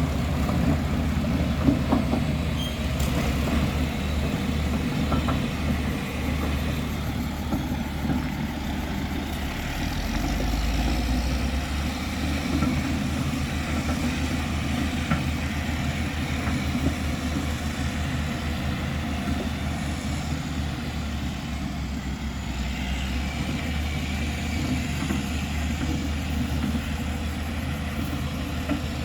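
Caterpillar 140H motor grader's diesel engine running steadily, a low, even drone with one short knock about two seconds in.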